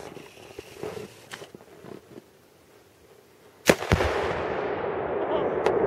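Tannerite charge under a flat-screen TV detonating: one sharp, loud blast about two thirds of the way in, followed by a rushing noise with scattered sharp cracks.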